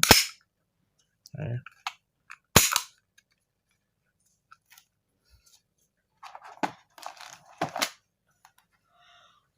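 Sharp metal clacks of a KWC Taurus PT92 blowback airgun pistol being worked by hand after reassembly: two loud clacks, one at the start and one about two and a half seconds in, then a run of lighter clicks and rattles near the end.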